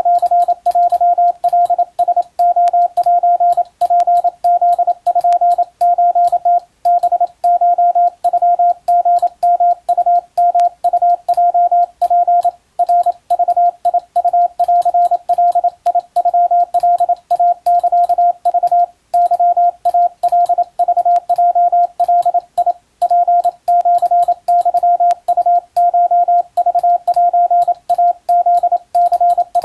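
Hand-keyed Morse code in Japanese Wabun code: a single tone of about 700 Hz switched rapidly on and off in dots and dashes, with a short pause between character groups every few seconds.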